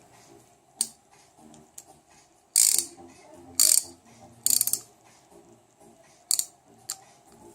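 Intertool 72-tooth, 3/8-inch ratchet handle clicking over as it is swung back. There are three short runs of rapid clicks, with a few single clicks between. The fine 72-tooth pawl catches within about a centimetre of swing.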